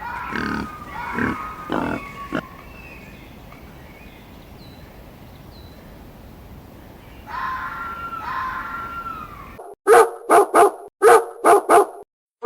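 A dog barking: six short, sharp barks in quick succession near the end. Earlier come a few higher whining calls that fall in pitch.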